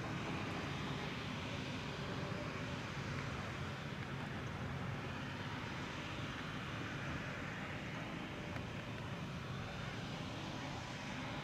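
Claas 860 self-propelled forage harvester chopping maize, with tractors working alongside: a steady mechanical drone with a low hum.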